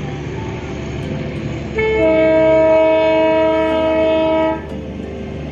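Diesel locomotive of the Darjeeling Himalayan Railway toy train sounding its horn in one long, steady multi-tone blast of about three seconds, starting about two seconds in and cutting off abruptly, over the low steady running of the locomotive's engine as it comes round the loop.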